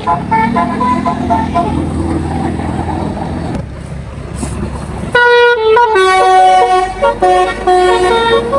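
Bus basuri telolet horn playing a multi-note melody over a diesel engine rumble. About five seconds in a much louder horn takes up a stepping melody.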